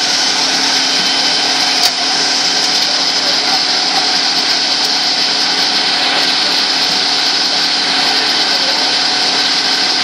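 Steady, loud machine noise from fire-service equipment: a motor's drone with a strong hiss over it, running without a break.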